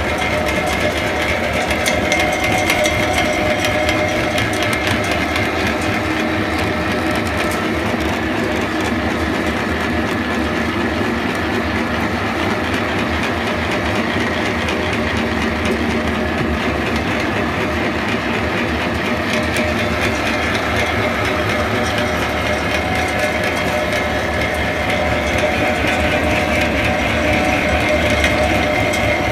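PRIME-200 flat-die pellet mill with an 11 kW motor running steadily under load, pressing MDF dust into pellets. A dense continuous rattle with a steady whine, slightly louder near the end.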